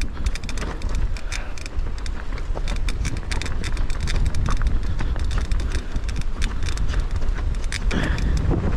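Rocky Mountain Instinct full-suspension mountain bike descending a rocky dirt trail: wind buffeting the microphone as a steady low rumble, with constant rattling and clicking from the tyres over rocks and the bike's chain and frame.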